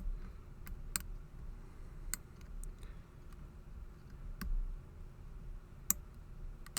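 Lock pick working the security pins of a Master Lock No. 19 padlock: sharp, separate light clicks, about nine at uneven intervals, as the pins are lifted and set.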